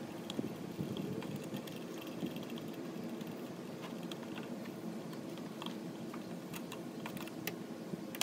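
Scattered small clicks and scrapes of a screwdriver and fingers prying and turning a fuel gauge loose from the top of a mower's fuel tank, over a steady low background hum.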